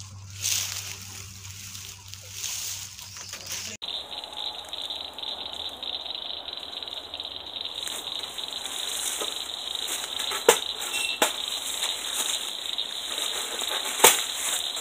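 Steady, shrill chorus of insects in the woods, with a few sharp metallic clanks from a wire cage trap being handled in the second half.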